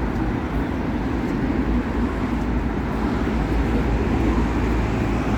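Steady city street traffic noise: a continuous low rumble of passing cars on a busy road.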